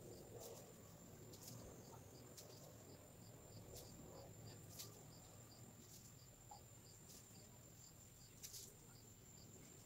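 Near silence: faint room tone with a thin steady high whine, a faint chirp repeating a few times a second, and a few soft ticks.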